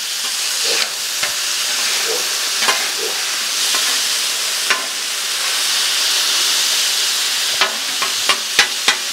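Thin-sliced ribeye sizzling steadily on the hot steel plate of a Blackstone griddle, while a metal spatula scrapes and clacks against the griddle as the meat is chopped and turned. A quick run of sharp clacks comes near the end.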